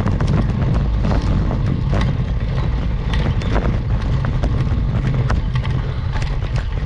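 Wind rumbling on a GoPro action camera's microphone, with scattered light clicks and knocks.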